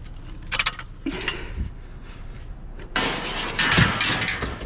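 Hard objects being handled: a few light clinks and knocks, then from about three seconds in a louder rattling clatter lasting about a second and a half.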